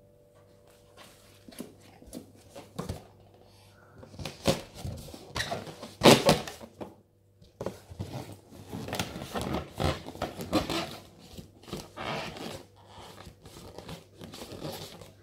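Latex balloons being handled and batted by hands, making irregular rubbing and bumping noises, loudest about six seconds in.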